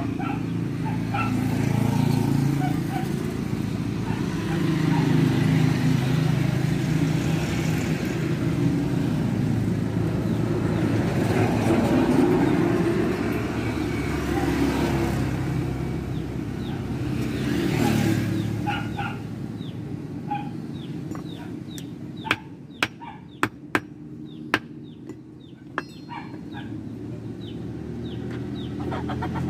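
Engine noise of passing road vehicles, swelling and fading, with several sharp clicks about three-quarters of the way through.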